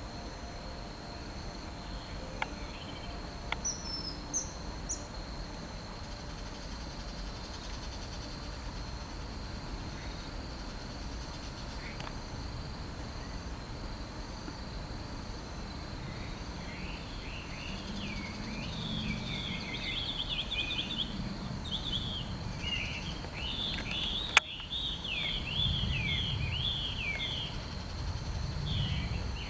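Common kingfisher calling outdoors: a few short, high calls a few seconds in, then from about halfway a long run of rapid chirping calls. A single sharp click comes near the end.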